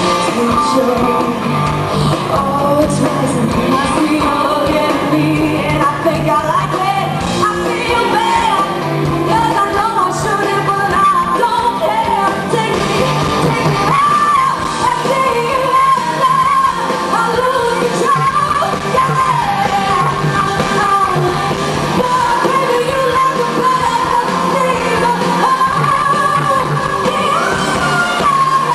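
A woman singing a soulful rock song live with a rock band including electric guitar, heard from the audience in a large hall.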